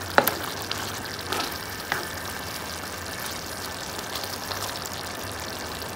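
Shrimp and coconut-milk curry sizzling steadily in a nonstick frying pan, with a few light clicks of a spatula against the pan in the first two seconds as it is stirred.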